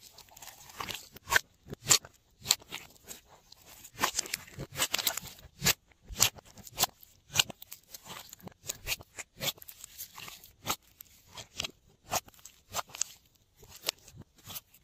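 Hands stretching, folding and pressing a soft glossy slime in a glass dish: a run of irregular sticky clicks and crackles, busiest about four to five seconds in.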